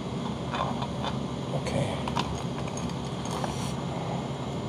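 Metal tongs and chopsticks clicking lightly and now and then against a metal pot and bowls as ramyeon noodles are lifted out, over a steady low hum.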